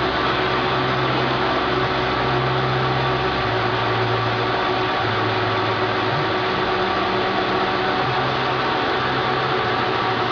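Halm Super Jet two-color offset envelope press running, a steady mechanical whir with a low hum underneath.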